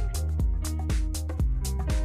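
Background music with a steady drum beat and deep bass.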